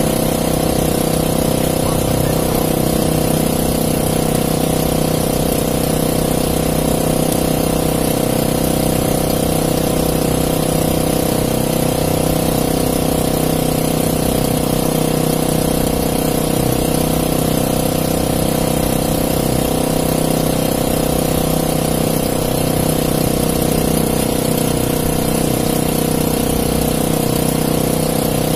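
Small engine aboard a bamboo-outrigger fishing boat running steadily at a constant speed.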